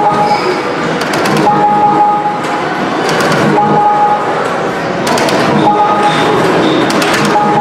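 Arcade din from electronic game machines: a continuous wash of game sounds, with a short beep tone repeating about every two seconds and sharp clicks mixed in.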